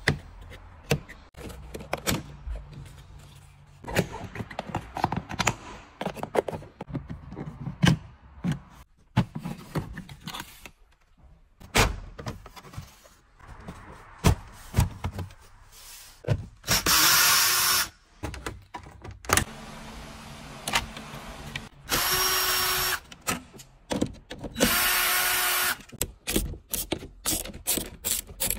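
Plastic interior trim panels being prised off, with repeated sharp clicks and knocks from the clips letting go. Three short runs of a cordless power driver, about a second each, come past the middle as it spins bolts out through a socket on a universal-joint extension.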